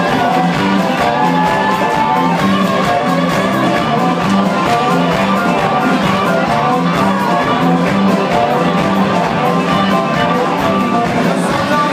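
Live blues band playing loudly with a steady, driving beat, harmonicas holding long notes over bass and guitar.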